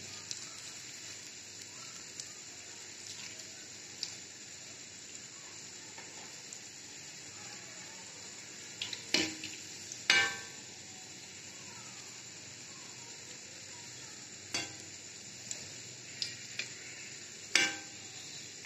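Paneer bread pakoras sizzling steadily as they deep-fry in oil in a metal kadai. A metal spoon stirs them and knocks sharply against the pan several times, loudest about halfway and near the end.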